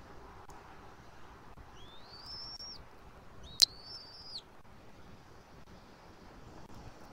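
Bald eaglet giving two thin, high peeping calls while being fed, each rising and then held for just under a second, the second about a second after the first. A single sharp click lands as the second call begins.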